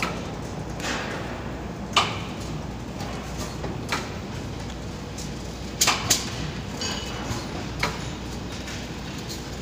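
DPP-160 flat-plate blister packing machine running: a steady hum with a sharp mechanical clack roughly every two seconds, once a quick double clack, as the machine cycles through its strokes.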